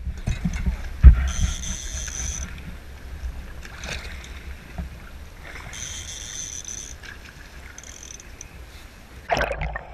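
Choppy sea water slapping and rushing against an aluminium boat hull, close to the water, with one sharp knock about a second in. Twice a high buzz of about a second, like a fishing reel's drag giving line to a hooked halibut, and near the end a burst of splashing.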